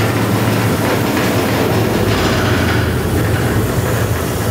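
Woodworking bandsaw running with no load: a steady motor hum and blade whir.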